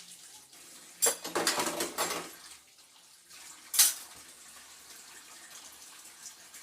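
Dishes being washed at a kitchen sink with faint running water throughout; about a second in, dishes clatter loudly for about a second, and near the four-second mark comes a single sharp clink.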